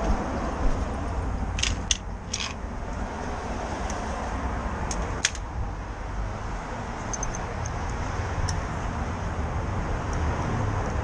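Steady low rumble of city street traffic, with a few sharp light clicks about two seconds in, another near the middle, and fainter ticks a little later.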